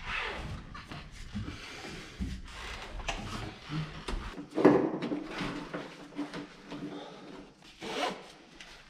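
Knocks and clunks of a motocross bike being settled in a pickup truck bed and strapped down, with the loudest clunk about halfway through and another sharp knock near the end.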